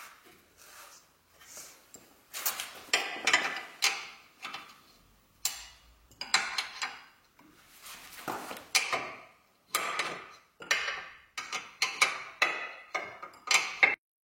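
Hand tools working the 18 mm nut of a newly fitted ball joint: a series of short metallic clicks and clanks at an irregular pace, coming faster in the last few seconds, then cutting off suddenly near the end.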